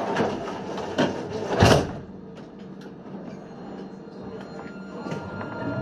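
Tram's sliding passenger doors closing, heard from inside the tram, ending in a loud thud about one and a half seconds in; after it the noise drops to a quieter hum with faint clicks.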